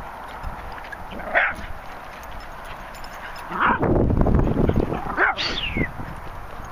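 Dogs giving a few short barks and yips, with one high call that falls in pitch near the end. A loud low rumble runs through the middle.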